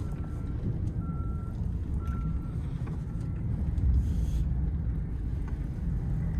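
A pickup truck's engine and tyres make a low rumble inside the cab as it drives slowly on a snowy road. A vehicle's backup alarm beeps about once a second through the cab and stops about three seconds in.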